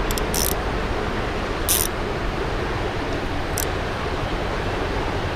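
A spinning reel's drag giving line in three short zips as a hooked smallmouth bass pulls against it, over the steady rush of a swollen creek.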